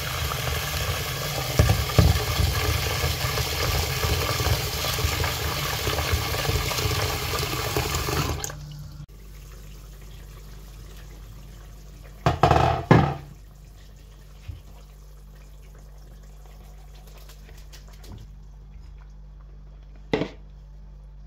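Tap water running hard into a plastic bowl of buckwheat groats as they are rinsed, for about eight seconds, then cutting off suddenly. After that there is a low steady hum, a brief clatter a few seconds later, and a short click near the end.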